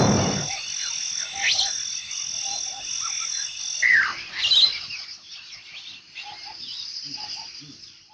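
Night-time nature ambience: a steady high insect trill with scattered short chirping calls, fading out at the very end. A loud rushing noise dies away in the first half second.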